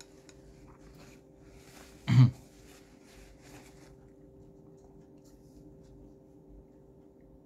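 A man eating oatmeal, with faint chewing and mouth noises, and about two seconds in a single short, loud throat sound like a cough or throat clearing.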